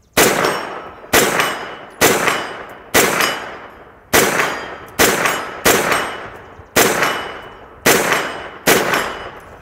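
Faxon Bantam 9mm pistol-caliber carbine firing 115-grain CCI Blazer rounds semi-automatically: ten shots at a steady pace of about one a second. Each shot carries a long decaying tail with the ring of hits on steel targets.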